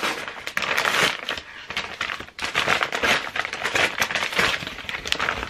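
Padded paper envelope being pulled open and handled, its paper crinkling and crackling in irregular bursts.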